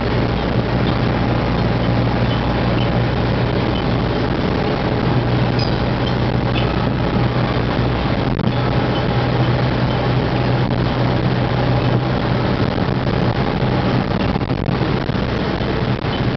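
Car engine and tyre noise heard from inside a car driving through a road tunnel: a loud, steady rumble with a low hum that keeps on without change.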